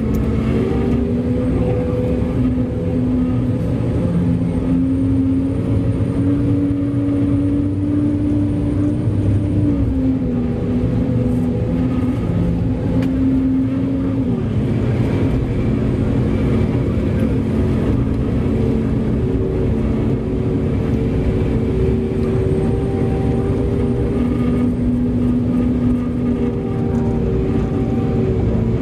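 Large diesel engine of heavy mining equipment running steadily under load. Its pitch climbs slowly, then drops about ten seconds in and again about fourteen seconds in.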